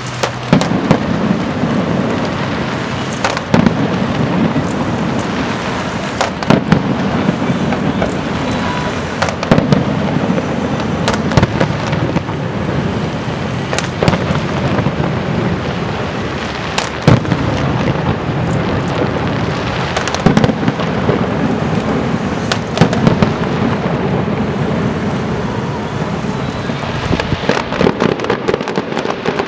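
Aerial fireworks display: a dense, continuous crackle and din, broken every few seconds by sharp, loud bangs as shells burst.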